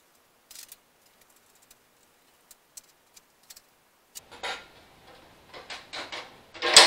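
A few faint, scattered clicks of hand tools on the seat bracket bolts. About four seconds in come knocks and scrapes as the yellow seat and the John Deere 185 seat pan are handled and turned over. Near the end there is a loud clunk with a short ringing tone after it as the seat pan is set down.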